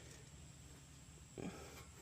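Near silence: faint room tone, with one short, soft low sound about a second and a half in.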